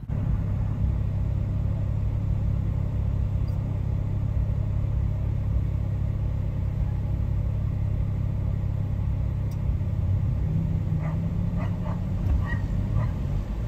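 Car engine idling in traffic: a steady low rumble, with a few faint short sounds near the end.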